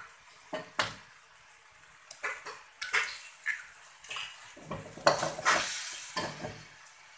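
Slotted metal spatula scraping and clanking against a steel wok while stir-frying noodles, in irregular strokes, with a louder stretch of clatter about five seconds in.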